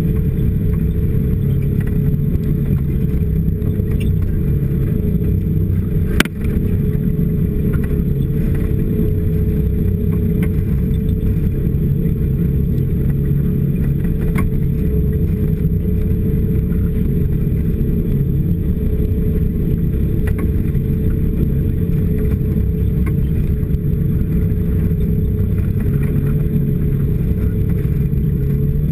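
Snowmobile engine running steadily while riding across snow, with one sharp knock about six seconds in.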